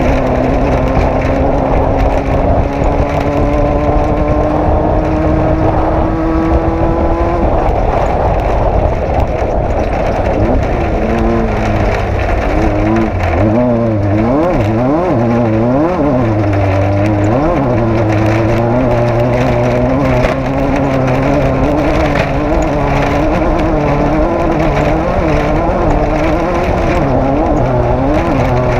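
Off-road race vehicle's engine running hard under load, its note climbing steadily for the first several seconds as it accelerates, then rising and falling quickly again and again with the throttle for the rest.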